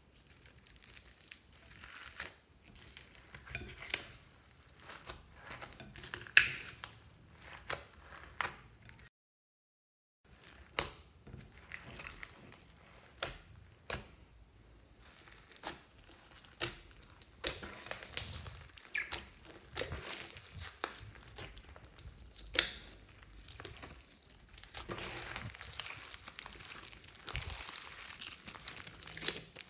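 Slime mixed with foam beads and sprinkles being squished and kneaded by hand: irregular sharp pops and squelches with crinkly crunching between them. The sound breaks off briefly about nine seconds in, and the crunching grows denser near the end.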